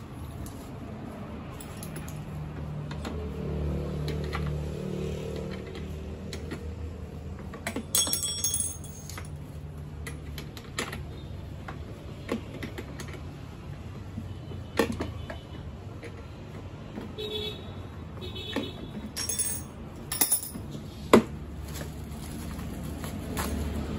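Scattered sharp clicks and light metallic clinks of small parts being handled while assembling a plastic children's ride-on electric motorcycle, the loudest a sharp click near the end. A low steady hum sits underneath.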